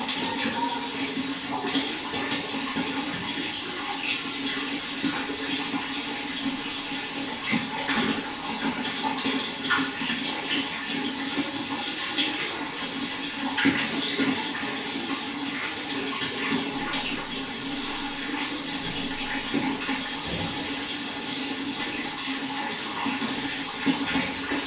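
Running water, a steady splashing and trickling flow with small droplet splashes scattered through it.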